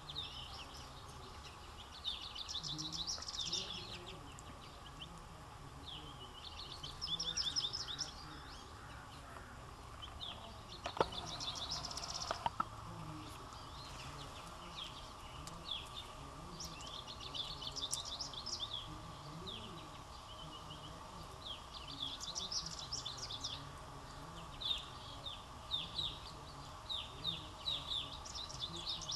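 Backyard songbirds singing in short bursts of rapid high notes every few seconds, turning to quicker, choppier chirping in the last third, over a faint steady hum. A couple of sharp clicks come just past the middle.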